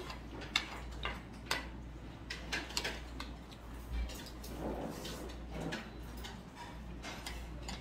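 Scattered light clicks and taps of chopsticks and tableware against bowls and plates during a meal, over a steady low hum.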